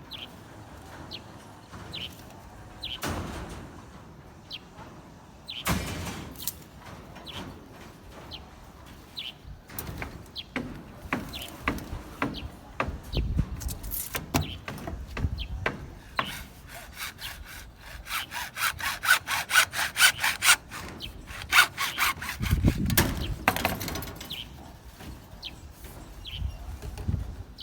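Hand sawing with a quick back-and-forth rhythm, strongest in the middle of the stretch, among scattered knocks and scrapes of work with tools.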